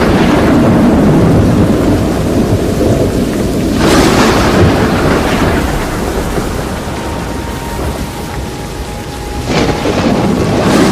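Thunderstorm: thunder rumbling over steady heavy rain, with a sudden loud surge about four seconds in and another near the end.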